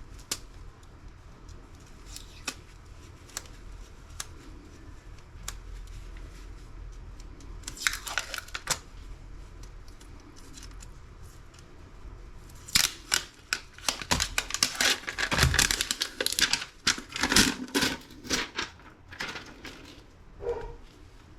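Scattered light clicks of laptop parts being handled, a short crinkling rip about a third of the way in, then several seconds of dense tearing and crackling from just past halfway as laptop parts are pried and peeled apart.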